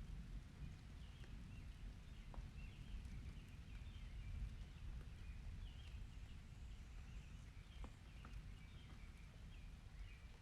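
Faint outdoor nature ambience: a steady low rumble with short high chirps scattered throughout and a few single ticks.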